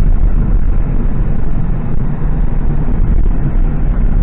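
Ford Crown Victoria Police Interceptor with its 4.6 L V8, heard from inside the cabin while driving: a steady low rumble of engine and road noise.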